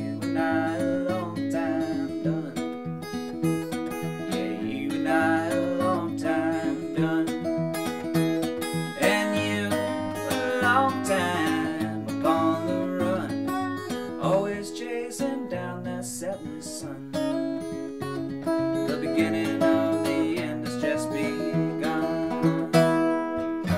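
Acoustic guitar being strummed and picked, chords and melody notes ringing continuously as the accompaniment to a folk song.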